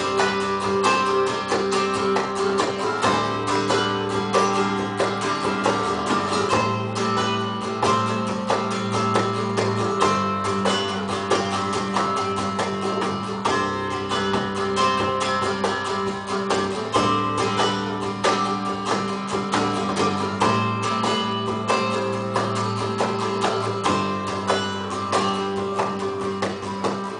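Acoustic guitar strumming an instrumental passage of a song, fast even strokes over sustained low notes.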